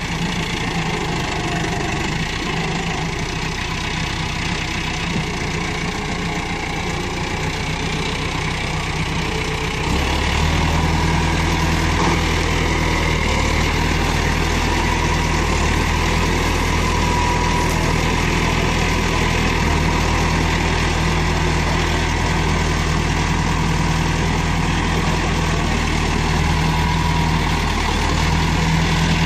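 Massey Ferguson 385 tractor's four-cylinder diesel engine running steadily while its front loader works brush. About ten seconds in the engine grows louder and heavier as it takes more load, lifting a bucketful of vegetation.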